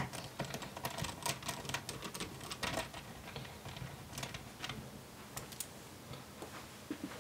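Torx T5 precision screwdriver driving screws back into a laptop's bottom panel: irregular light clicks and ticks of the bit and screws, dense for the first three seconds, then sparser.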